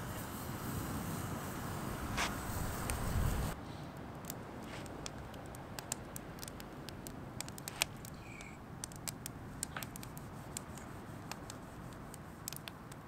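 Campfire burning in a fire ring, crackling with scattered sharp pops and snaps. A louder low rushing noise fills the first three and a half seconds and cuts off suddenly.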